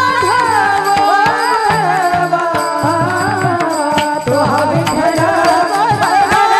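Devotional kirtan singing: a melodic voice gliding and ornamenting its notes over instrumental accompaniment, with a steady run of sharp percussion strokes.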